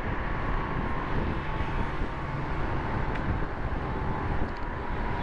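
Steady rush of wind and traffic noise heard from a moving motorbike on a busy road.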